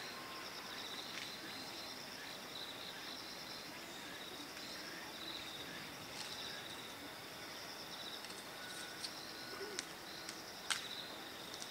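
Steady outdoor chorus of insects, a fast pulsing trill that runs on without a break, with a few short sharp clicks near the end.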